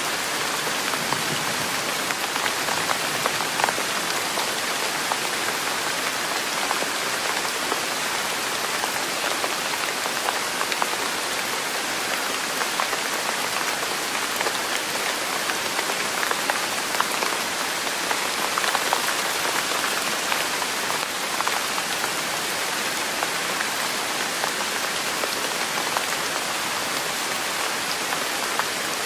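Steady rain falling: an even, unbroken hiss dotted with many small drop taps.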